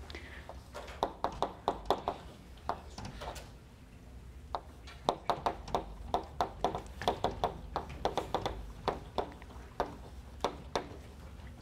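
Chalk writing on a blackboard: quick runs of sharp taps and short scratches as letters are chalked, starting about a second in, with a brief pause near the middle.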